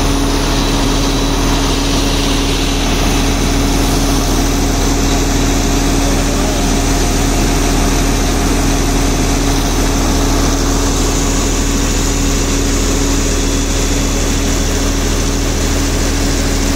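XCMG XCT60 truck crane's diesel engine and driveline running steadily, with a constant droning hum and no change in speed.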